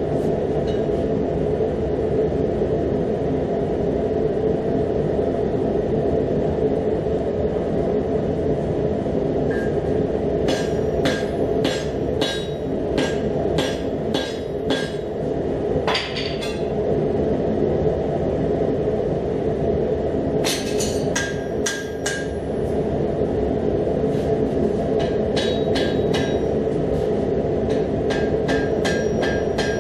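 Hand hammer striking a red-hot damascus barrel tube on an anvil, forging it down smaller, in runs of quick ringing blows at about two to three a second. The blows come about a third of the way in, once or twice around the middle, and again through the last few seconds, over the steady roar of the forge.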